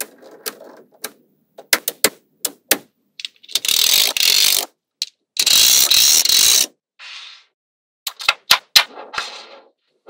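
Small magnetic balls snapping onto a wall of magnetic balls with sharp clicks. Twice near the middle, for about a second each time, a strip of balls being pressed along the top row makes a dense clattering, the loudest sound here. More scattered clicks follow near the end.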